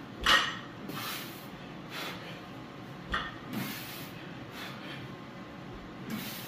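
Loaded barbell clanking as it is set down in a power rack during rack pulls, a sharp clank about a third of a second in and a smaller knock about three seconds in, with the lifter's short, hissing breaths between the reps.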